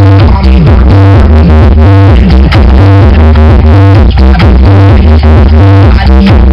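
Loud electronic dance music with a heavy, pulsing bass beat and synthesizer lines, played very loud through a PC sound system.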